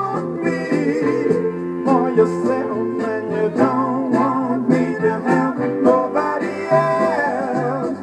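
Soul record playing from a 45 rpm vinyl single on a turntable: a band with a stepping bass line, a steady beat and guitar, under a gliding melodic lead line.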